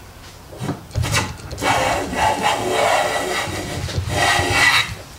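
Infill smoothing plane taking a shaving along the edge of a board: a long, even rasping hiss of the iron cutting wood, after a short knock about a second in. The cut is a thicker one, taken with the plane's adjustment just tightened.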